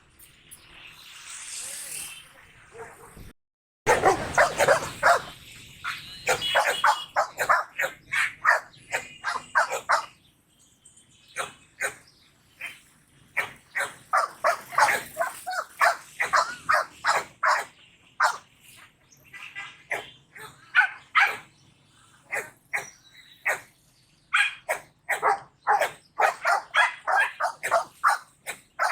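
A dog barking in fast repeated runs, several barks a second, broken by short pauses. Before the barking starts there are about three seconds of a fainter hissing noise and a brief cut to silence.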